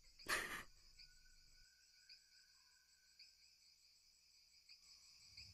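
Faint crickets chirping: a steady high trill that pulses about twice a second. A brief breathy noise comes right at the start.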